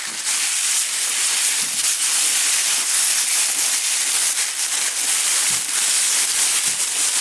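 Hands rummaging through the packing material in a shipping box of locks: a continuous, dense rustling hiss.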